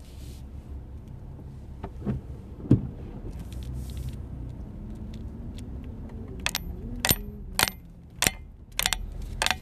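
Steady low hum of the 2005 Ford Explorer Sport Trac's engine and road noise inside the cab, with a couple of knocks early on. Near the end the turn-signal indicator starts clicking at an even pace, a bit under two ticks a second, as the truck turns.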